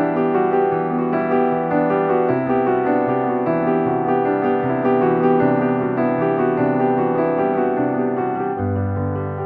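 Background music: a gentle piano piece with sustained chords and a moving bass line.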